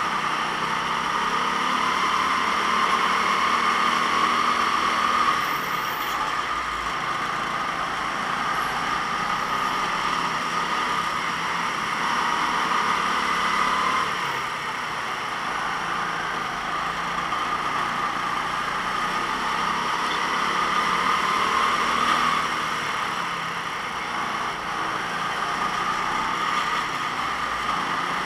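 Go-kart engine running through a race. It swells as it is pushed and eases off again roughly every eight seconds.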